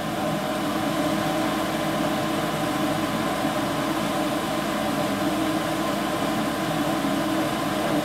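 Draft inducer motor of a Goodman GMSS960803BNAA gas furnace running with a steady hum during the pre-purge, ahead of the trial for ignition.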